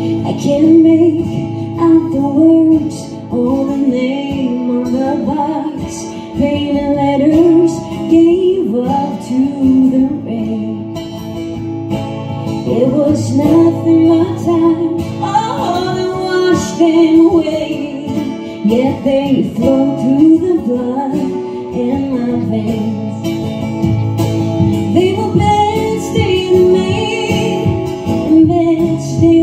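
Live acoustic duet: a woman and a man singing to two acoustic guitars, the woman's voice most prominent.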